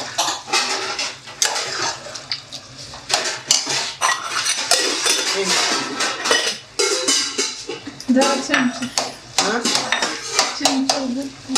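Dishes, pots and cutlery clinking and clattering again and again as they are handled, with voices talking in the background in the latter half.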